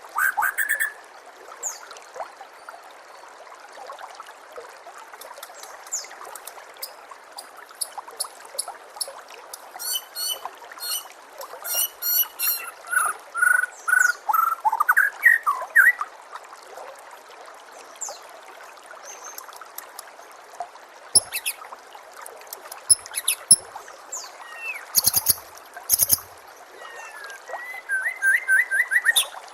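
White-rumped shama singing in separate varied phrases of clear whistles and fast trills, over a steady trickle of running water.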